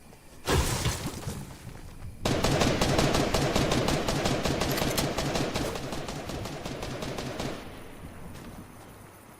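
Rapid gunfire: a short burst about half a second in, then a long volley of quick shots from about two seconds in that slowly fades away.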